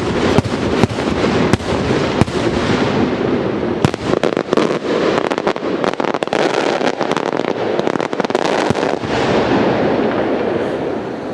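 Beraq aerial firework shells going off: many sharp cracks over a dense, continuous crackle, thinning out about nine seconds in.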